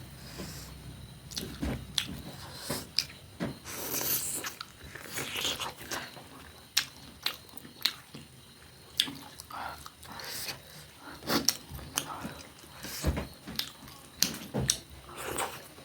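Close-miked mukbang eating sounds: a person biting and chewing food, with irregular crunchy clicks and wet smacks throughout.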